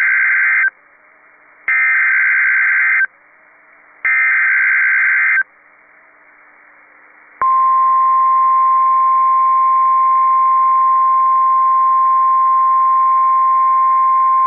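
NOAA Weather Radio Emergency Alert System signal. The end of the first SAME digital header burst is followed by two more, each about a second and a half long with a second's pause between. About seven seconds in, the steady single-pitched 1050 Hz weather radio alert tone begins and holds.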